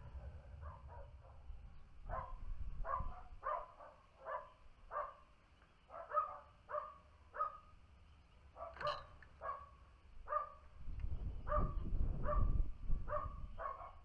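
A dog barking over and over, about two barks a second, with a low rumble rising in the last few seconds.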